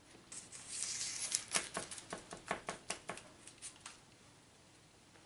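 Puff pastry being trimmed with a kitchen knife and pressed down on a metal baking tray: a short scrape, then a couple of seconds of light, irregular clicks and taps.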